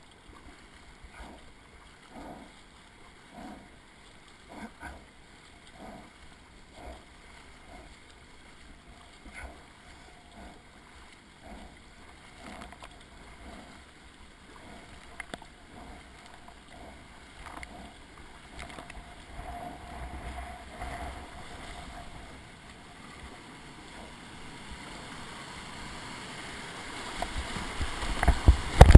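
Kayak paddle strokes dipping into the river about once a second, with water splashing off the bow. Near the end, rushing whitewater grows loud and there are heavy splashes as the kayak drops into a rapid.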